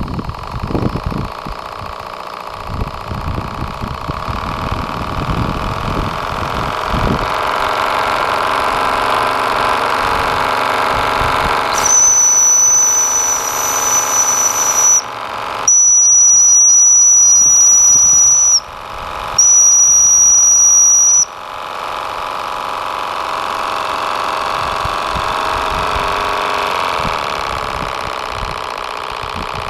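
Q series V-twin model steam engine running steadily. About twelve seconds in, three long, loud, shrill whistle blasts sound one after another.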